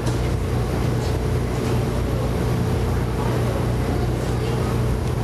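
Steady low drone of an engine or machinery running without change.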